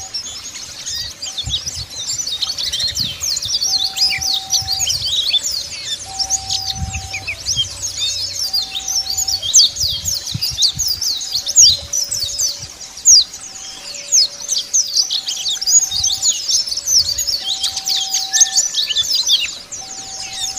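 Pleci (white-eyes, Zosterops) singing in a dense, rapid stream of high twittering chirps, the full 'ngalas' song used to provoke rival birds. Under it, a low two-note tone alternates steadily, each note about half a second long.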